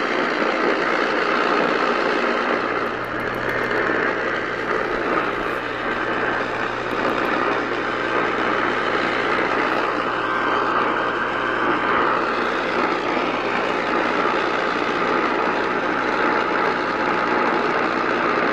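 Steady hiss of radio static. A low hum joins in about three seconds in.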